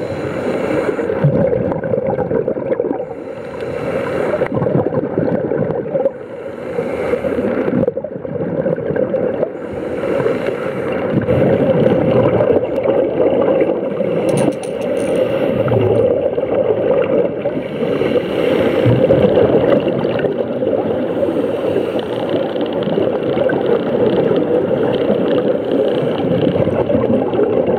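Underwater sound of a scuba dive: a steady muffled water rush, with a gurgle of exhaled regulator bubbles returning every few seconds.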